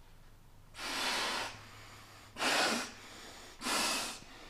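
A Sea to Summit inflatable pillow being blown up by mouth: three puffs of breath into its valve, each under a second long and about a second and a half apart.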